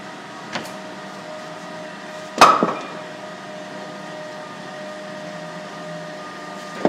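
A loud metal clank about two and a half seconds in, ringing briefly, after a lighter knock near the start, as a liquid-nitrogen-chilled steel cylinder liner and its lifting gear are handled. A steady hum runs underneath.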